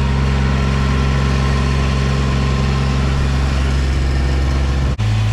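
Kubota utility vehicle's engine running steadily as it drives along, heard from on board. About five seconds in there is a brief dropout, after which the engine hum carries on at a different pitch.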